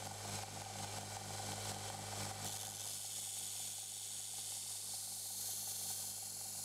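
Belt grinder's motor running with a steady hum while a steel knife blade is held against the moving belt to sharpen the edge; the grinding hiss comes in about two and a half seconds in and stops near the end.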